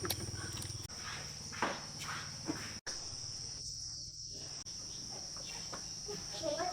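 Insects, crickets, chirping in a steady high continuous trill, with a few soft knocks and a brief cut-out about three seconds in.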